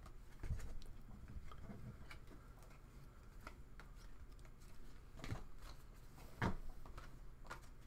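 Faint handling noise of trading cards, rustling softly with a few short taps as cards are set down on a table and picked up.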